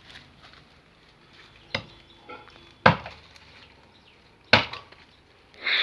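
Chopping blows of a hand tool biting into wood: four sharp strikes about one to one and a half seconds apart, each with a short ring.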